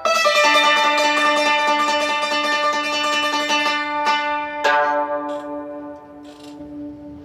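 A plucked string instrument plays a struck chord whose notes ring on and fade. A second chord comes a little after halfway and dies away slowly, like the closing phrase of a piece.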